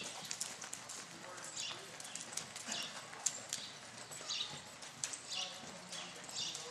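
A horse's hooves striking and scuffing through the soft dirt footing of an arena as it walks under a rider, a run of uneven, regular hoofbeats.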